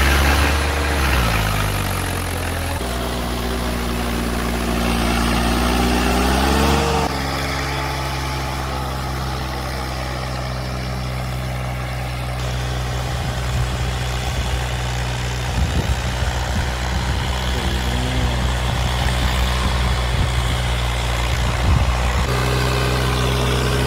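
Swaraj 855 FE tractor's three-cylinder diesel engine running under load while pulling a disc harrow through ploughed soil. Its note drops in the first couple of seconds, climbs again until about seven seconds in, then holds steady, with a few abrupt jumps in pitch.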